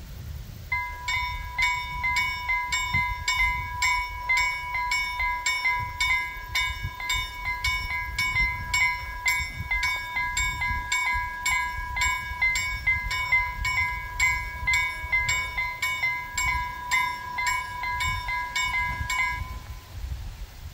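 Two level-crossing warning bells, a KLD-4315 and a Vialis EBA, sounding together: a steady ringing tone overlaid with sharp strikes about twice a second, starting about a second in and stopping shortly before the end as the barriers come down, warning of an approaching train.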